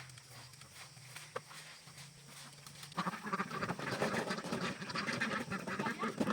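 A flock of ducks quacking together, a dense jumble of overlapping calls that starts about halfway in.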